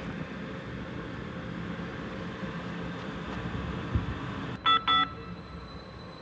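Light rail train moving past the platform with a steady low rumble. There is a thump about four seconds in, then two short electronic beeps in quick succession.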